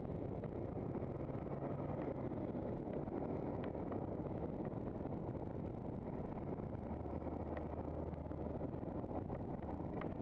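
Handcycle rolling along a tarmac road: a steady rumble of tyre and wind noise on the bike-mounted camera, with a few light ticks.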